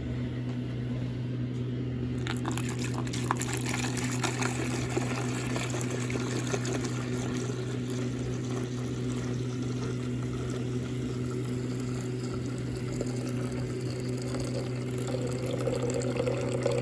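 Hot water being poured into a container over tea bags and stevia, a continuous splashing pour that starts about two seconds in, with a low steady hum underneath.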